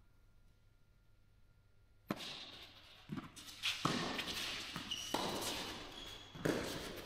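A tennis rally in a reverberant indoor hall: rackets hitting the ball and the ball bouncing on the clay court, a series of sharp, echoing strikes roughly a second apart that begins about two seconds in after a quiet start.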